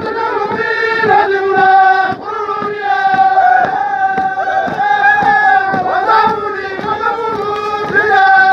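A Papua New Guinea highlands singsing group chanting in unison, the voices holding long notes over a steady, rapid beat of drums.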